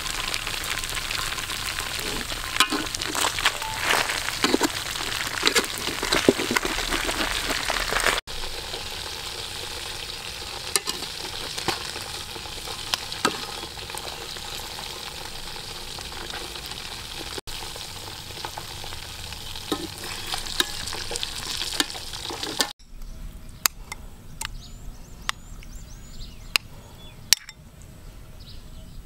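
Stingray pieces deep-frying in oil in a metal wok: dense sizzling and popping, with sharp clacks of tongs against the pan in the first several seconds. The sizzle then settles to a steadier, quieter hiss. Near the end it drops away to a few sharp clinks of a metal spoon stirring a pot of rice porridge.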